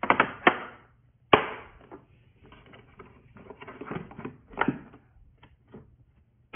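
Plastic-handled TACKLIFE screwdrivers clacking and scraping against the moulded slots of their hard plastic case as they are handled: a few sharp clacks, the loudest near the start, about a second in and at the very end, with rattling and scraping between.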